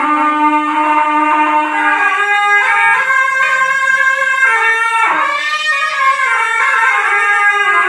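Two zurnas (folk double-reed shawms) playing together. A steady held low note sounds under a melody for the first couple of seconds. Then both move through an ornamented tune, with a pitch glide about five seconds in.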